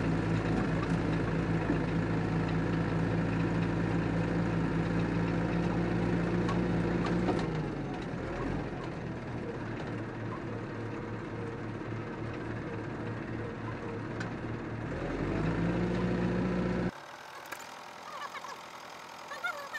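Massey Ferguson 265 tractor's three-cylinder diesel engine running steadily, heard close up. About seven seconds in its revs drop and it runs quieter and rougher, then revs climb back up about fifteen seconds in. A couple of seconds later the engine sound drops away abruptly to a much quieter background.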